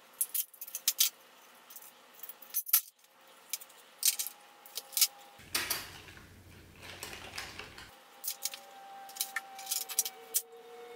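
Quick, irregular clicks and clatter of the plastic parts of a Brother printer/scanner being pried apart and handled, with a rougher stretch of rubbing and handling noise around the middle.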